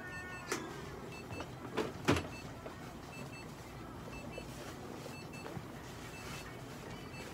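Clinic equipment beeping: short high double beeps repeating about once a second, over a low steady hum, with a few light knocks and clicks in the first two seconds.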